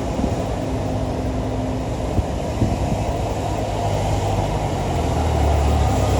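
Heavy vehicle's engine running on the road, a low rumble that grows louder over the last couple of seconds as it comes closer.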